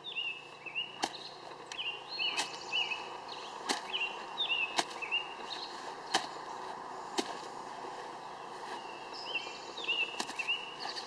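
Lacrosse stick swishing through the grass and knocking against the ground and ball in sharp, irregular taps while scooping at a ball. A string of short, high, falling chirps repeats through most of it.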